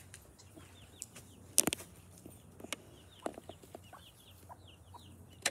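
Chickens clucking softly, many short high falling calls in a row. A few sharp knocks and rustles break in, the loudest about one and a half seconds in.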